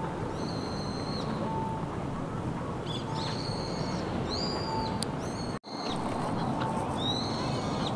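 Birds calling: about five drawn-out high calls, each under a second long, over a steady low background rumble. The sound drops out for an instant just past halfway.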